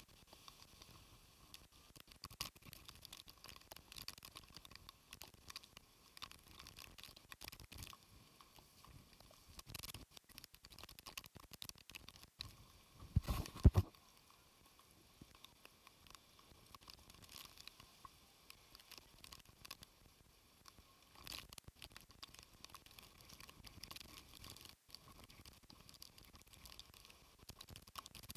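Faint crackly patter of rain on the camera's microphone, with one louder low thump about halfway through.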